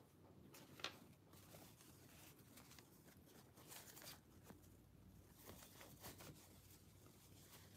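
Near silence with faint rustling and a few soft clicks, as a paper tissue is handled.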